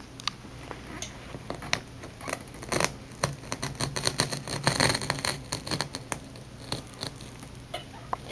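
Utility knife blade cutting through nylon frieze carpet along a row, an irregular run of small scratchy clicks and crackles as the backing yarns part, busiest in the middle.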